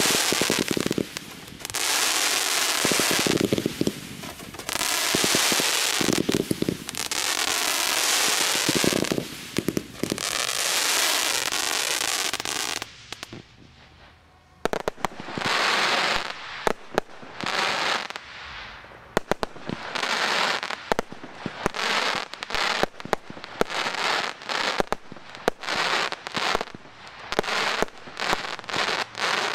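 Daytime fireworks going off. For the first dozen seconds there are long loud rushing bursts, each a second or two; after a short lull about 13 seconds in comes a fast run of sharp bangs and crackles, several a second.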